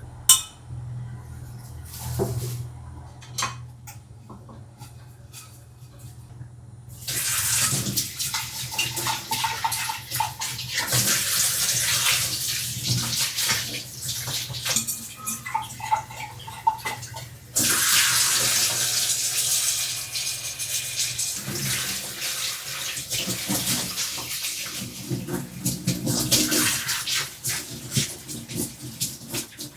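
A few light knocks and clinks, then water running from a tap and splashing from about seven seconds in, as lucky bamboo stalks and their vase are rinsed. The flow gets suddenly stronger about ten seconds later.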